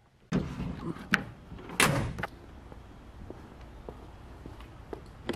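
Pickup truck door being handled: a few sharp knocks and clacks in the first two seconds, then a faint steady background with a light click near the end.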